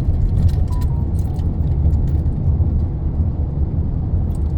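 Steady low rumble of a car in motion, road and engine noise heard from inside the cabin, with a few faint clicks.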